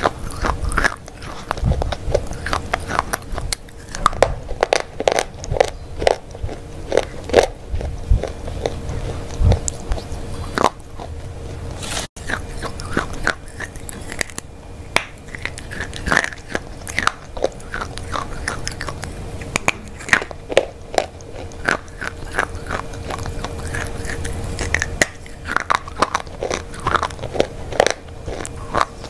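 Close-miked biting and chewing of Milky Bar white chocolate: a run of sharp snaps as pieces are bitten off, with chewing between the bites.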